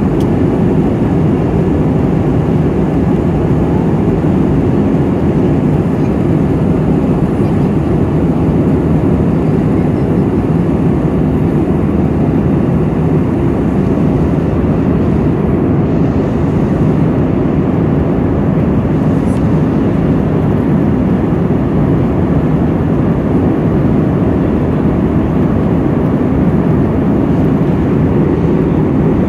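Steady cabin noise of an airliner in flight: an even, low rushing sound of engines and airflow heard from inside the cabin.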